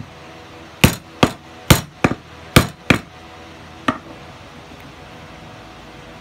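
Hammer striking a rivet-setting tool to set a double-cap leather rivet: six sharp strikes in three quick pairs, then one lighter tap about a second later.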